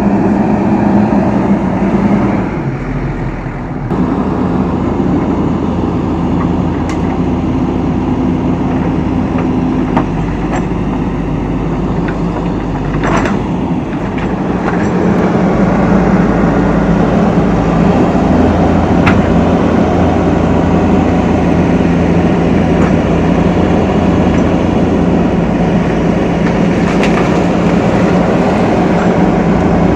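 JCB backhoe loader's diesel engine running under working load, its note shifting as the load changes and getting louder about halfway through, with a few faint knocks.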